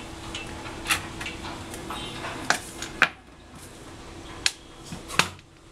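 About five sharp, separate clicks and clinks of small hard objects knocking, spread over a few seconds, over a faint steady hum.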